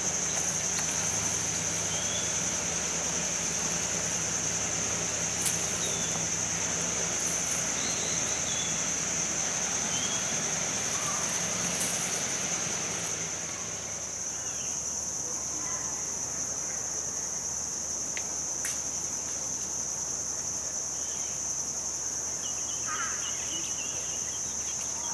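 Steady high-pitched drone of an insect chorus, crickets or cicadas, with a few short bird chirps.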